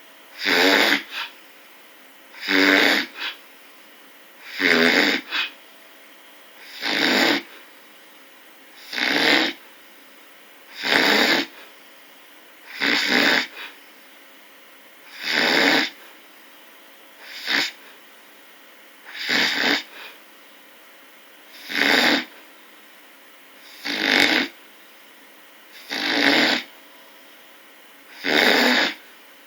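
Snoring: a short snore about every two seconds, in a steady even rhythm.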